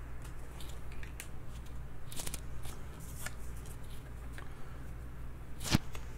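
Scattered light clicks and taps over a steady low hum, with one sharper click about five and a half seconds in.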